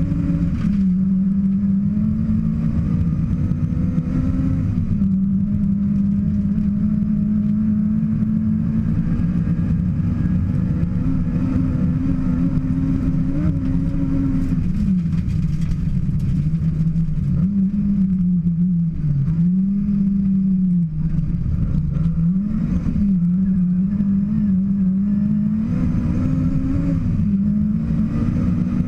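Rally car engine running hard at stage speed, its pitch dipping and climbing again with lifts and gear changes, several times in quick succession from about 17 to 23 seconds in.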